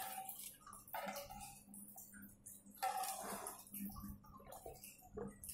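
Faint eating and drinking sounds: scattered small clicks and handling noises, and a sip from a plastic cup, over a low steady hum.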